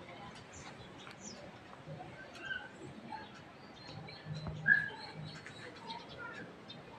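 Faint chirping of small birds: scattered short calls, with one noticeably louder chirp a little past the middle.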